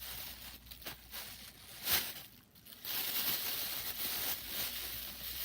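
Rustling and crinkling of a plastic bag being handled as a card is slipped in. There is a sharp rustle about two seconds in, then steady rustling from about a second later.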